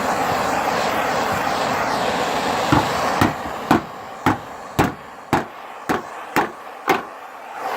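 Steady rushing noise of a torch heating a car's steel fender. About three seconds in the rush drops away and a run of about nine sharp metallic taps follows, roughly two a second.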